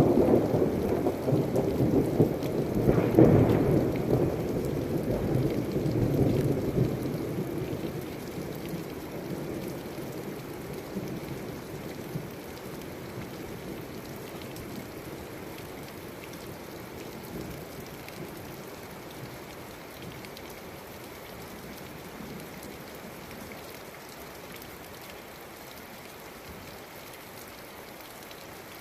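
Thunder rumbling over heavy rain, with a louder clap about three seconds in; the rumble dies away over the next several seconds, leaving steady rain falling.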